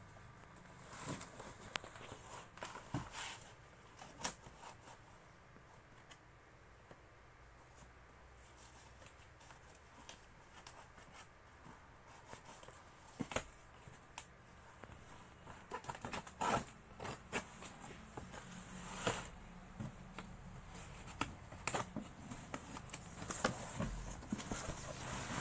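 Cardboard carton being cut open and unpacked by hand: scattered short scrapes, taps and rustles as the plastic packing strap and tape are cut and the flaps are pulled back.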